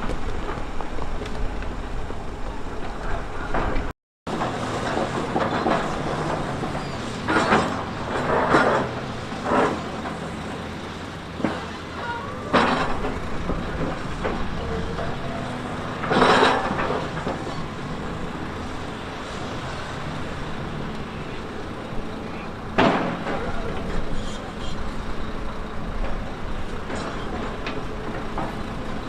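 Heavy earthmoving machine's diesel engine running steadily under load, with several short, louder scraping or hissing bursts over it. The sound cuts out for a moment about four seconds in.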